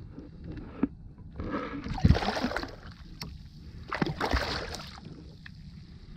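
Water splashing and sloshing against a kayak's side as a small smoothhound shark is let go and thrashes its tail at the surface, in two bursts about a second and a half in and about four seconds in, the first the louder.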